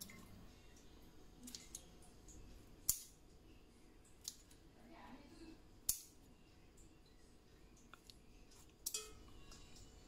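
Scissors snipping through thin plant stems (susu nabi, also called ara tanah), a sharp snip every one to three seconds, with the loudest snips about three and six seconds in.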